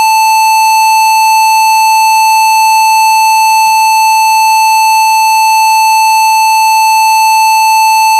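Loud, continuous electronic beep: one steady high tone, unchanging and unbroken, used as a computer-crash sound effect over a blue screen of death.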